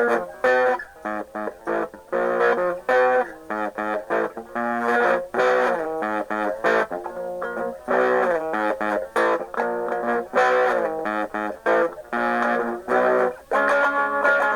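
Guitar in an alternate tuning playing a choppy riff of short picked notes and chords in quick stop-start bursts, ending on a chord left ringing near the end.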